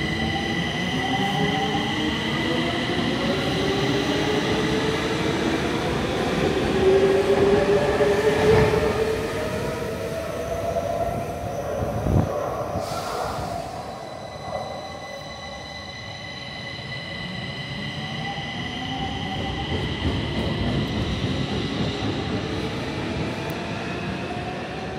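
Stockholm metro train pulling out of an underground station, its electric traction motors whining in several tones that rise in pitch as it gathers speed, then fading away down the tunnel. A single sharp knock comes about halfway through, and a rising whine returns in the last several seconds.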